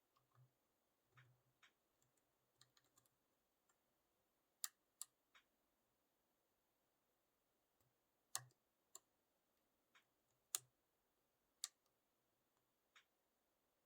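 A lock pick and tension tool clicking against the pins inside a Clark-Anxter Platinum 6-pin lock as it is being picked: scattered sharp metallic clicks at irregular intervals, a few of them distinctly louder.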